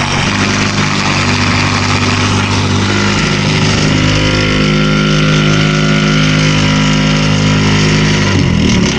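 A boat motor running steadily with a stack of even, level tones over a rushing noise. The tones break up and change shortly before the end.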